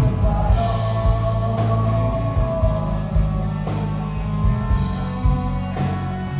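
Live rock band playing an instrumental passage: electric and acoustic guitars, bass guitar and drum kit, with a sustained guitar line over the bass and drums.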